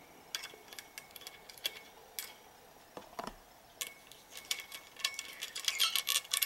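Faint, irregular little metal clicks and ticks as the top-cap bolt of a threadless BMX stem is unscrewed by hand. The clicks come sparsely at first and grow busier over the last couple of seconds.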